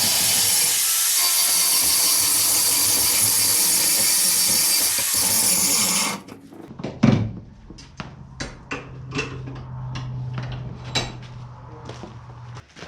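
Angle grinder grinding down a steel rebar piece, running steadily for about six seconds and then stopping abruptly. After that come scattered clinks and knocks of metal being handled, over a low steady hum.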